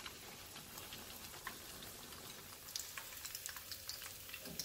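Shrimp egg foo young patty frying in hot oil in a pan: a soft, steady sizzle dotted with many small crackles and pops.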